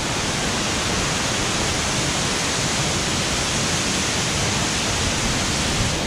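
Waterfall's steady, even rush of falling water.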